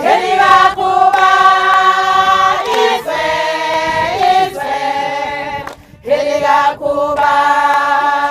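A group of voices singing unaccompanied in long held notes, phrase after phrase with short breaks between.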